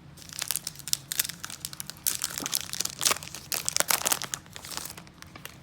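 Foil Pokémon booster pack wrapper crinkling and tearing as it is handled and ripped open. The crackling lasts about five seconds, starting a moment in and stopping near the end.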